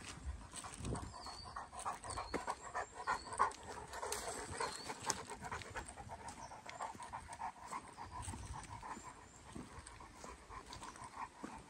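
Greater Swiss Mountain Dog panting quickly and rhythmically while trotting along a trail.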